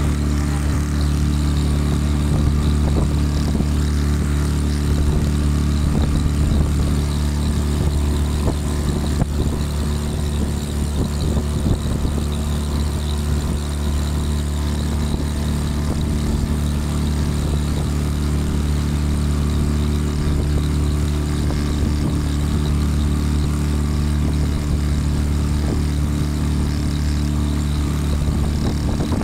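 Small boat's motor running steadily at cruising speed under way: a loud, even low drone with several held tones that doesn't change pitch.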